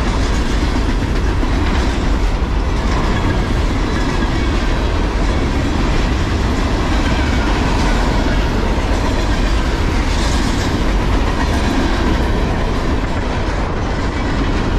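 Freight train of waste-container flatcars rolling past at speed: a steady, loud rumble of steel wheels on rail with clickety-clack over the rail joints.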